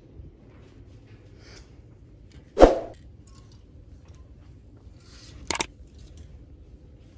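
Plastic clothes hangers clacking against each other and the metal rail as shirts are pushed along a rack: one loud knock about two and a half seconds in and a sharp double click about five and a half seconds in, over a faint low hum.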